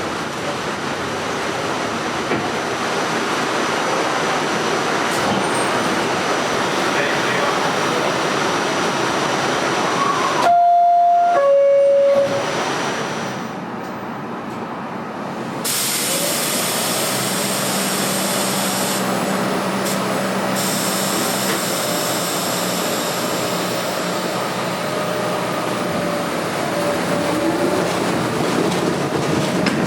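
Staten Island Railway R44 subway train running, with a loud two-note descending chime, the door-closing chime, about ten seconds in; then the train runs on with a steady rumble.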